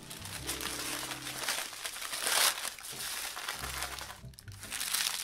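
Baking paper crinkling and rustling as hands roll and squeeze a cake roll wrapped in it, loudest a little over two seconds in.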